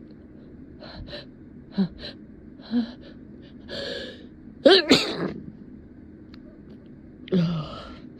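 A person's short, catching breaths building up to a sneeze about five seconds in, the loudest sound. The sneeze comes despite an effort to hold it back. Another loud gasp or sneeze burst follows near the end.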